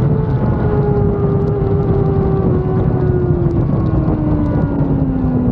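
Stohr WF1 sports racer's BMW motorcycle inline-four engine heard onboard at speed, its high-pitched note falling smoothly and steadily from high revs, with no gear changes, as the car slows. Wind rushes past the open cockpit.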